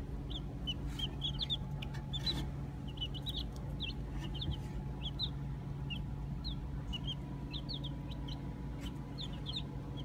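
A brood of baby chicks peeping: many short, high peeps overlapping all through, over a steady low hum.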